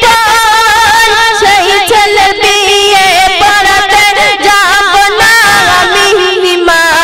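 A young woman sings a Bengali gojol into a handheld microphone: long held notes with vibrato and ornamented turns.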